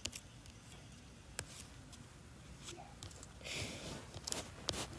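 Faint handling noise: a few light clicks and taps, with a short breathy hiss about three and a half seconds in.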